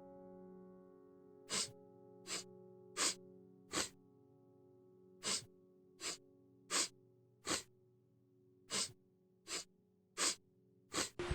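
Background music: a piano chord fades out under a series of short, breathy hissing bursts, twelve in three groups of four, evenly spaced. Rain-like noise sets in at the very end.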